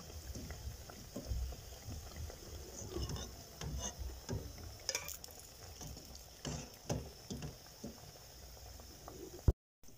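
Andrasay deep-frying in hot oil in a metal wok, the oil bubbling and sizzling, with a metal slotted spoon clinking now and then against the pan as the pieces are lifted out to drain. A sharp click near the end, then the sound cuts off suddenly.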